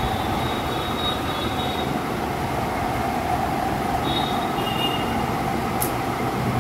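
Steady rushing, machine-like background noise at an even level, with faint high squeaks about a second in and again near four seconds in, and a brief click near the end.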